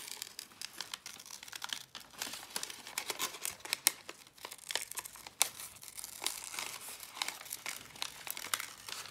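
Paper crinkling and rustling as it is folded and shaped by hand, with many short, irregular crackles.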